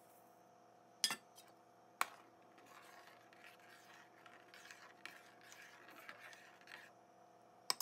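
Spoon knocking twice against a metal cooking pot, then scraping and stirring through simmering milk vermicelli pudding (seviyan kheer) for a few seconds, ending with another sharp clink.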